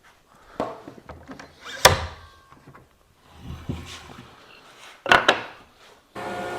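Brass setup bars and workpieces being set down and handled on a table saw while the blade height is set: a few sharp knocks, the loudest about two seconds in, some rubbing, and a quick double knock. Near the end the table saw starts and runs with a steady hum.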